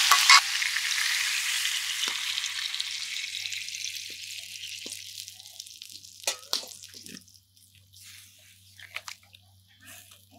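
Spiced beef sizzling in an aluminium pot, the hiss dying away over about five seconds as water goes in over the browned meat; after that, only scattered drips and a few small bubbling sounds.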